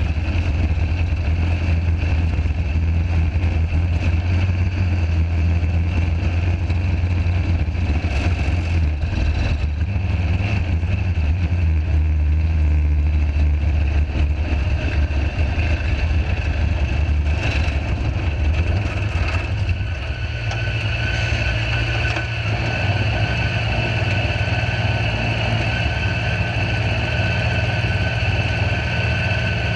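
Sand rail engine running steadily as the buggy drives along in a line of rails. About twenty seconds in its low note drops back and settles into a steady idle as the rail slows and stops behind the rail in front.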